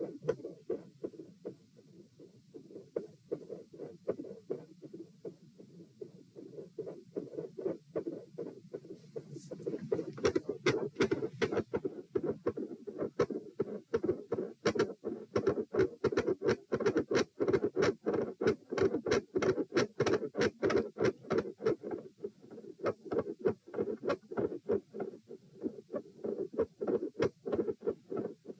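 Heart sounds picked up by a stethoscope over the pulmonic area, beating as a regular run of double thumps with a split second heart sound. They are faint at first, with the person lying down, and become much louder and faster about ten seconds in, which fits the person sitting up.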